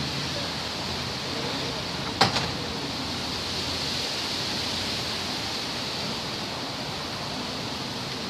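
A steady, even rushing hiss with no pitch to it, and one sharp click about two seconds in.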